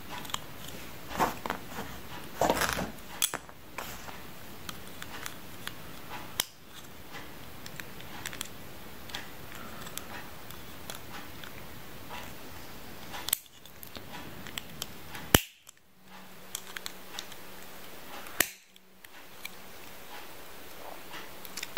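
Plastic parts of a Takaratomy plastic-generation Beyblade being handled and fitted together: scattered small clicks and rattles, the sharpest about fifteen seconds in.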